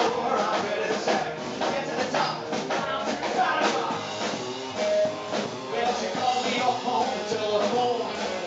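Live rockabilly band playing a fast rock and roll number: electric guitar, upright bass and drum kit with a driving beat, and a male lead vocal.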